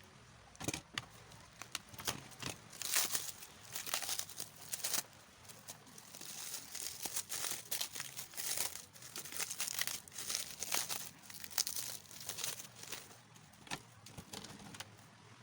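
Plastic packaging crinkling and tearing in irregular bursts as a parcel is unwrapped.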